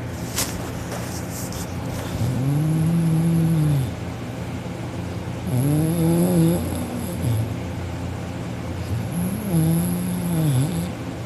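A sleeping man moaning: three drawn-out, low moans, each about a second and a half long, rising and then falling in pitch.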